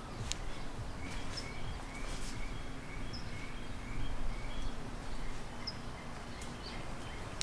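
Outdoor ambience: a bird chirping, a run of short chirps repeating two or three times a second, with a few higher chirps, over a steady low rumble.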